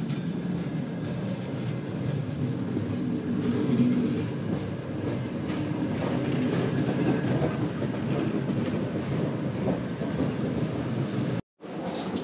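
Aeroexpress electric train pulling into the platform and running past close by, loudest about four seconds in. The sound drops out briefly near the end at an edit.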